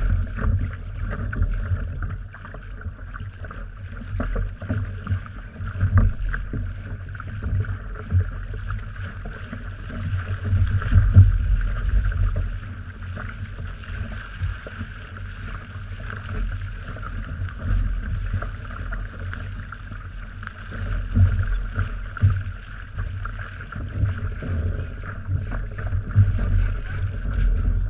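Wind gusting over the microphone in an uneven low rumble, over steady water noise from a small boat on the water.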